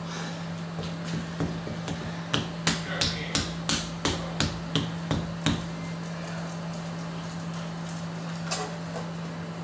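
A quick run of about ten sharp clicks, roughly three a second, then one more click about three seconds later, over a steady low hum.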